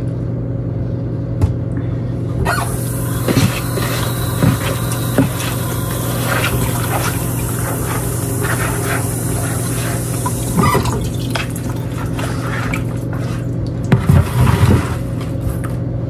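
Water running from a kitchen tap for about eight seconds, over a steady low electrical hum, with a few knocks and clatters near the end.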